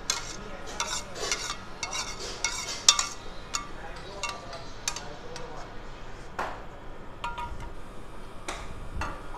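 A metal pan and utensil scraping and clinking as thick cashew curry is scraped out of the pan onto a plate. The clinks come thick and fast for the first few seconds, then thin out to a few separate knocks.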